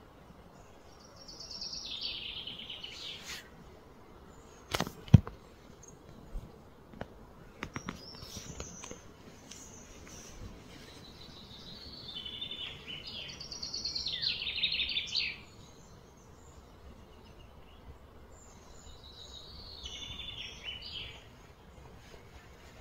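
Small birds singing in several bouts of fast, falling trills over a steady outdoor hiss. A single sharp knock about five seconds in is the loudest sound, followed by a few fainter clicks.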